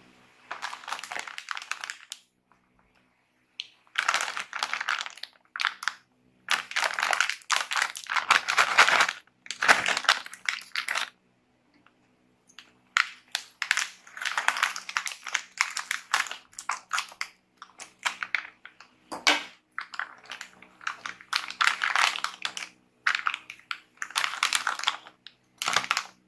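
Foil-lined plastic snack bag of corn chips crinkling in bursts as it is handled, cut open with scissors and pulled open, with short pauses between the bursts.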